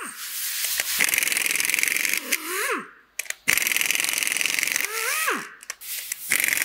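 Impact wrench hammering on the cylinder head bolts of a Hyundai D4CB diesel engine. Each time, about a second of fast rattling hammering breaks the bolt loose, then the tool spins free with a short whine that rises and drops off. This happens twice, and a third starts near the end.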